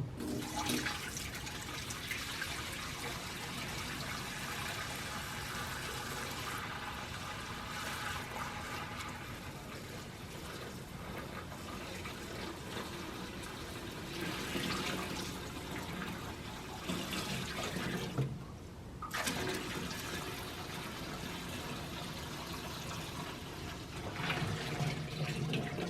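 Water being poured into a metal bandsaw's coolant tank to dilute the coolant concentrate, with a steady rush of filling liquid that breaks off briefly about three-quarters of the way through, then resumes.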